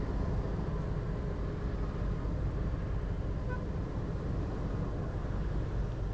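Steady low background rumble, even throughout, with no distinct tool strikes or clicks.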